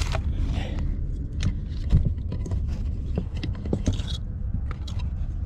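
An electrical cable and a plastic zip tie rubbing and clicking against plastic dash trim as they are pushed through a tight gap behind the panel. The clicks and scrapes are small and come at uneven intervals, over a steady low rumble.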